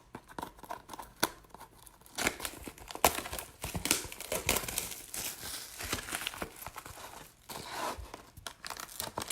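Packaging of a sealed trading-card box being torn open and crinkled by hand: irregular crackling, rustling and tearing.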